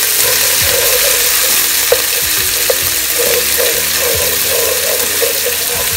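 Ginger and garlic paste sizzling in hot oil in a nonstick pan, stirred with a wooden spoon that scrapes round the pan in steady strokes a few times a second. Two sharp clicks of the spoon against the pan come near the middle.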